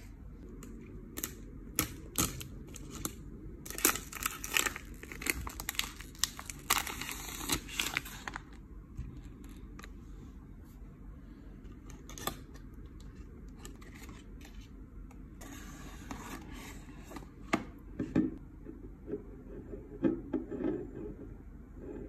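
Plastic wrapping being torn and crinkled off a cardboard perfume box, densest in the first eight seconds or so. Scattered clicks and taps follow as the box is opened and the glass perfume bottle is taken out and handled.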